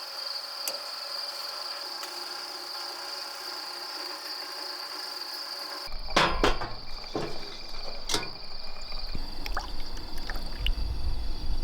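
A steady high-pitched insect buzz runs throughout. About halfway through, a low rumble sets in along with several short knocks and rustles.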